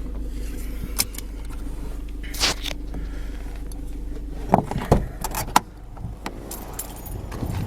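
Car engine idling with a steady low hum, with sharp clicks about one and two and a half seconds in and a quick run of clicks and jangling, like keys and fittings being handled, a little past the middle.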